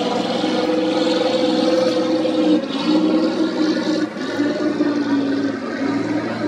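Racing boat engines running steadily at speed over a rushing wash of water and spray. The engine note shifts briefly about two and a half and four seconds in.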